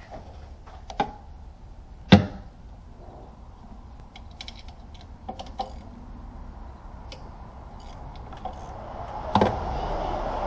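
Metal hand tools clinking and knocking against engine parts during work in an engine bay: a sharp clank about two seconds in, a patter of light ticks in the middle, and another clank near the end.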